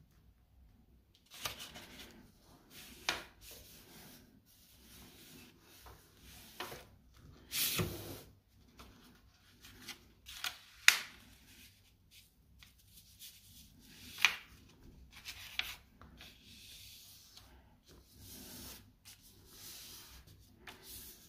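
A sheet of A4 paper being folded and creased by hand on a tabletop. Intermittent rustling and rubbing start after about a second, broken by a few short, sharp crackles as the fold is pressed down.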